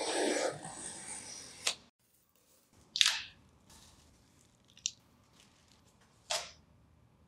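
Box cutter slicing the packing tape along the top of a cardboard box, a scratchy cut lasting about two seconds and ending in a click. Then a few short, sharp rasps of cardboard and plastic packaging as the box is opened and parts are handled, the loudest about three seconds in.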